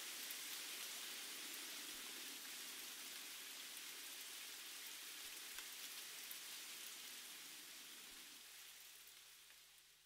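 Faint steady hiss like light rain, with a few small scattered ticks, fading away over the last two seconds.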